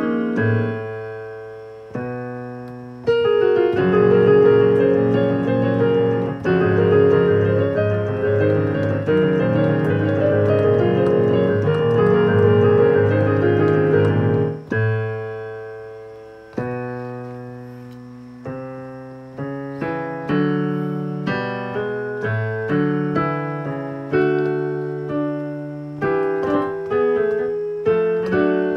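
Piano being played: a couple of chords struck and left to ring away, then a loud, dense passage of fast notes held together in a sustained wash for about ten seconds. After that, single chords are struck and fade, coming quicker toward the end.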